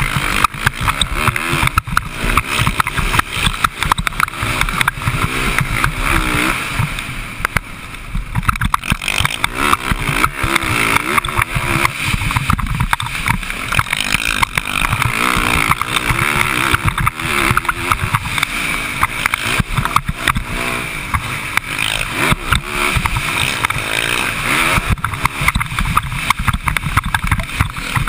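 Motocross dirt bike engine revving up and falling off again and again as it is ridden hard around a dirt track, heard close from a camera on the rider under a rough rush of wind and track noise.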